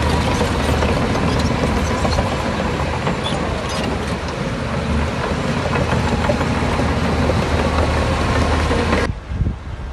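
Heavy diesel earthmoving machinery running under load, with a steady engine drone and a dense clatter of metal clanks. The sound drops off sharply about nine seconds in.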